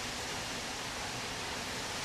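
Steady, even hiss of a commercial kitchen's background noise in the dishwashing area.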